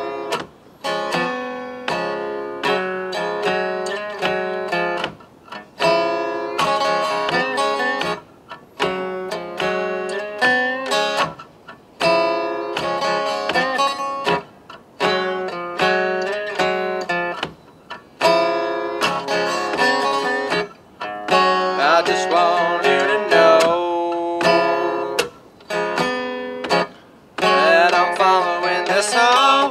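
Resonator guitar fingerpicked, playing phrases of single notes and chords with brief pauses between them.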